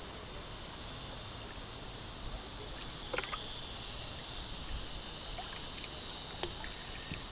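Small waves lapping at the water's edge under a steady outdoor hiss, with a few faint short clicks about three seconds in and again near the end.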